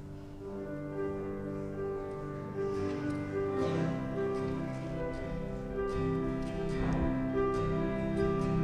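Instrumental music with held, sustained notes that change in steps, growing louder over the first half.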